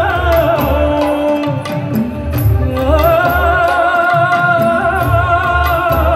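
Indian classical dance-drama music playing loud: an ornamented melody that slides between notes, then holds long wavering notes, over steady drum beats.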